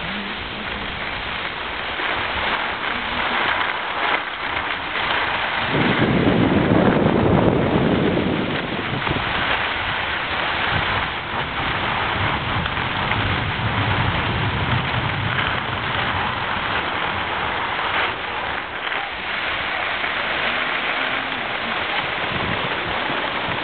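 Steady hiss of skis sliding and scraping over snow, with wind rumbling on the microphone, heaviest about six to eight seconds in.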